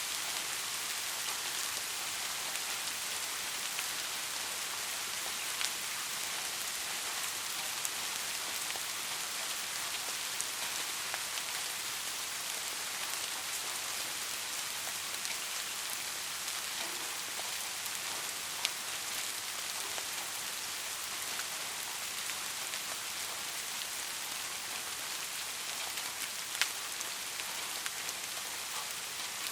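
Steady rainfall, a constant hiss of falling rain with a few separate drops ticking louder now and then.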